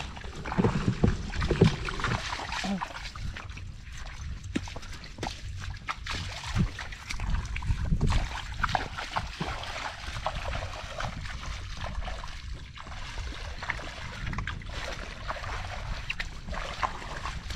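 Water sloshing and splashing, with scattered knocks and clicks; loudest in bursts about one to two seconds in.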